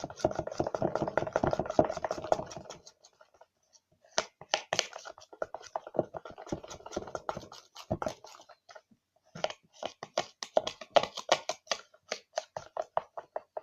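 Fluffy slime made with shaving foam being mixed and squished, giving runs of rapid wet, sticky clicks and squelches in three spells with short pauses between.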